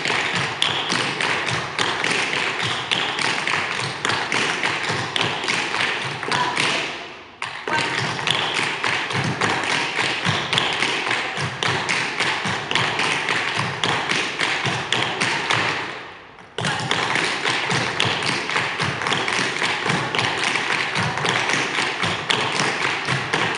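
Metal taps on a group of dancers' tap shoes striking the floor in fast, dense runs, repeating a paradiddle step. The tapping stops briefly about seven seconds in and again about sixteen seconds in, then starts again.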